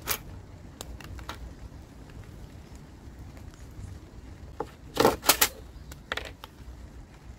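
Handling sounds of a long metal straightedge and a marker pen on a sheet of OSB board as a cut line is laid out: a few light clicks, then a quick cluster of sharp knocks about five seconds in and one more a second later. A faint low rumble runs underneath.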